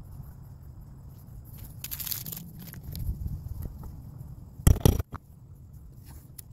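Leather being handled and worked by hand, with crunching and scraping and a swishing rub about two seconds in. A sharp double knock comes about two-thirds of the way through.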